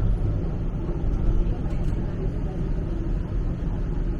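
Steady low rumble inside a moving TTC streetcar, heard from the passenger cabin.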